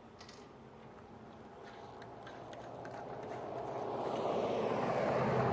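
A car approaching along the street, its tyre noise and engine growing steadily louder toward the end.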